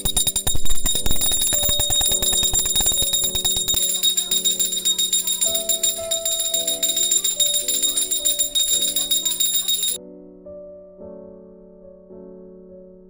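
Brass puja hand bell rung rapidly and continuously, a bright metallic ringing with high sustained tones, stopping abruptly about ten seconds in. Soft keyboard music plays underneath throughout.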